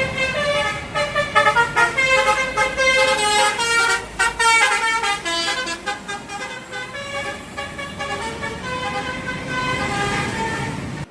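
Bus 'telolet' horn, a Basuri multi-trumpet melody air horn, playing a quick tune of short notes that change pitch several times a second.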